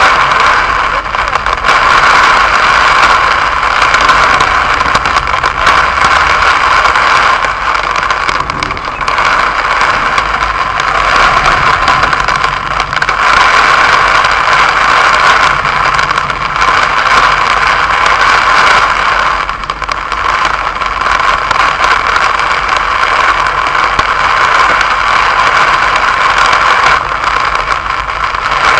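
Heavy rain pounding on a car's roof and windshield, heard from inside the cabin as a loud, dense patter of drops over a low steady rumble from the car.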